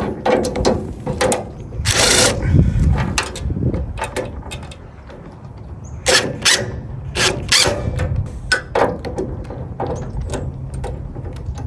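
Socket ratchet clicking as bolts holding a tool cart's caster wheel are tightened, with scattered clanks of metal parts and tools. A longer rasping burst comes about two seconds in.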